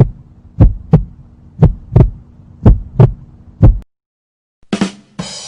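Heartbeat sound effect: low double thumps, lub-dub, about one beat a second, which stop a little before 4 s. Near the end a short burst and a hissy sound begin the next effect.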